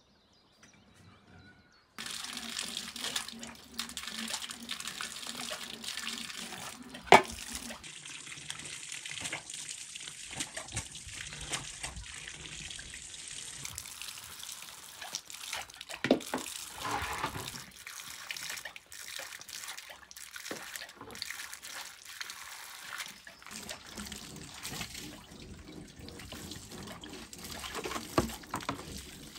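Running water, splashing, starting about two seconds in, with scattered knocks and clatter; the loudest is a sharp knock about seven seconds in.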